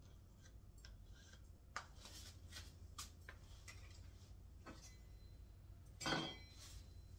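Scattered light clicks and clinks of small objects being handled, with one louder clunk that rings briefly about six seconds in, over a steady low hum.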